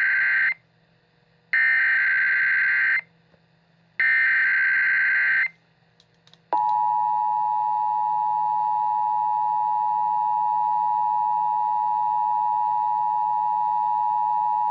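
Emergency Alert System SAME header: the tail of one burst of rapid warbling digital data tones, then two more identical bursts about a second and a half long, evenly spaced. About six and a half seconds in, the steady two-tone EAS attention signal starts and holds, announcing the voice alert that follows.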